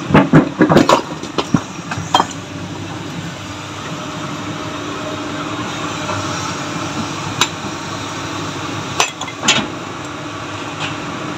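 Sledgehammer striking rock, splitting stone by hand: a quick run of sharp, clinking blows in the first two seconds, then a few more near the end. Under it runs the steady sound of an excavator's engine.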